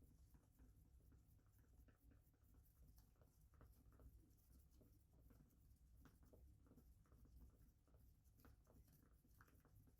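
Near silence: faint scratching and small irregular ticks over a low background hum.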